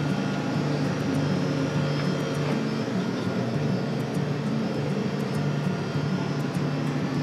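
A steady low machine drone runs without a break.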